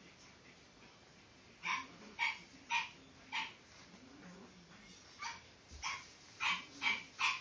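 French Bulldog puppy giving short, high play barks, four in quick succession and then five more after a short pause, while it worries a rubber toy.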